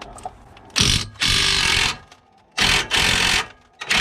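Power tool run in three short rattling bursts, about a second each, the last one starting just before the end, while working on a car's rear brake assembly.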